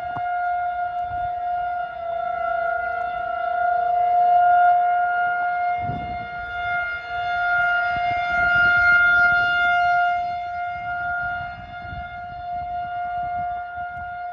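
Outdoor warning siren sounding a loud, steady tone at one pitch. Its loudness swells and fades about every four to five seconds.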